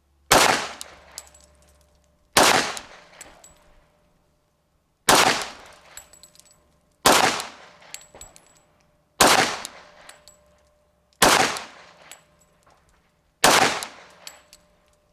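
Glock 21 pistol in .45 ACP firing slow, deliberate single shots: seven loud shots about two seconds apart, each dying away over about a second.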